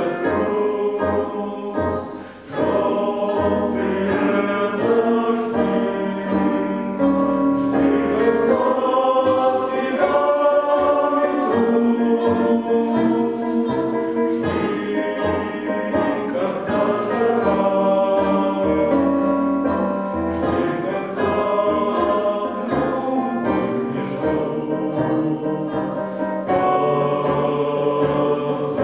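Mixed choir of women's and men's voices singing in harmony, with a brief dip in loudness about two seconds in.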